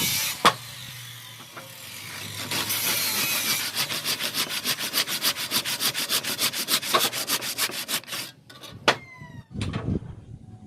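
A tool scraping through wood in quick, even strokes, several a second, broken by a few sharp knocks. Near the end the strokes stop and a short sound with a sliding pitch follows.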